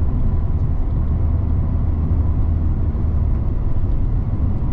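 Steady engine and road noise of a Mazda ND Roadster (MX-5) driving along, heard from inside the cabin as a low, even rumble.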